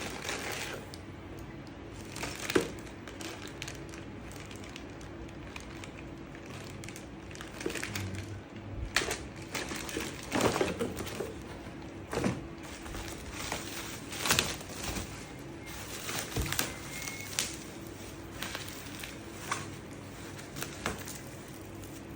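Unboxing handling noises from a robot vacuum's packaging and parts: irregular crinkling and rustling with light clicks and knocks, busier in the second half, over a faint steady hum.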